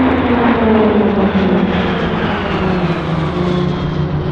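Pilatus PC-21 turboprop flying past, its propeller and engine drone sliding steadily down in pitch as it passes.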